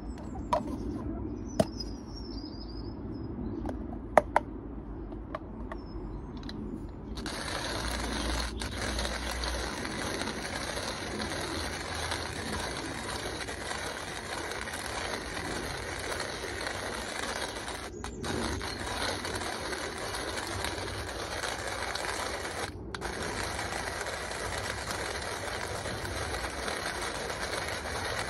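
A few sharp clicks and knocks as the hand coffee grinder's catch cup is handled and fitted. Then, from about seven seconds in, the hand-cranked burr grinder grinds coffee beans with a continuous crunching, scraping noise that breaks off briefly two or three times.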